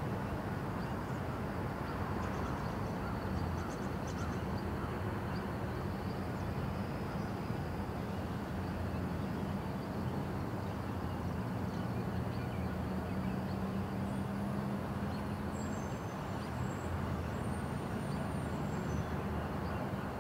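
A group of four diesel freight locomotives running light as they pull away: a steady low engine drone over a broad rumble, with no sudden events.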